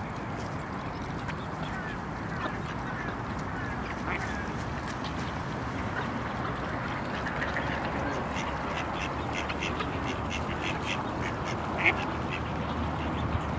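Mallard ducks quacking and calling as a flock feeds on scattered rolled oats, with a quick patter of clicks from about halfway through.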